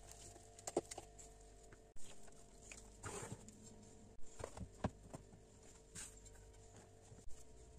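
Scattered light knocks and scrapes of a wooden spatula in a metal mixing bowl, then a few soft taps as things are handled on the counter, over a faint steady hum.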